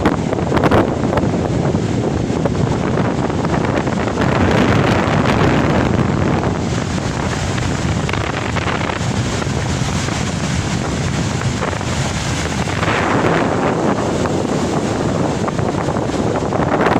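Wind buffeting the microphone over rough sea surf, the noise of the waves swelling louder twice.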